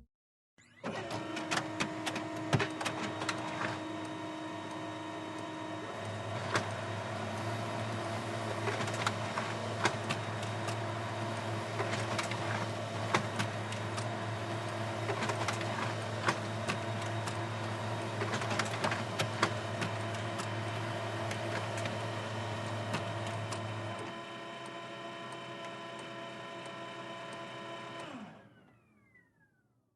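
Office printer printing sheets of paper: a steady motor whine with a run of mechanical clicks and clatter from the paper feed. About 24 s in it drops to a quieter running sound, then the motor whine falls in pitch and stops near the end.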